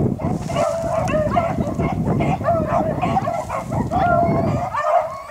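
A pack of beagles baying and yipping in overlapping calls as they run a rabbit, over a low rumble that stops near the end.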